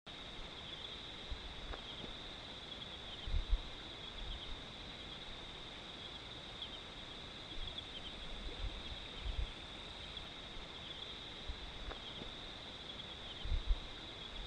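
Steady high trilling of night insects, with faint repeated chirps in it. A few short low thumps come about three and a half seconds in and again near the end.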